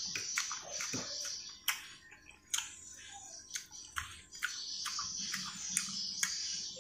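Close-up eating sounds: chewing and mouth smacks as a man eats rice and an omelette by hand, heard as sharp, irregular clicks a few times a second.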